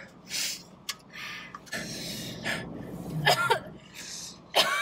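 Short, breathy gasps and hard breaths through the mouth against the burn of ghost-pepper snacks, with two brief voiced sounds, one about three seconds in and one near the end.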